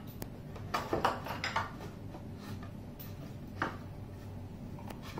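Scattered light knocks and clatter of wooden bed slats and a wooden spacer being handled and set against a bed frame rail, a small cluster about a second in and single taps later.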